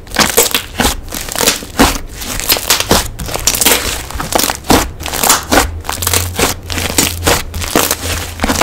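Slime being squished and pressed by hand, giving a fast, irregular run of crackling clicks and pops, several a second.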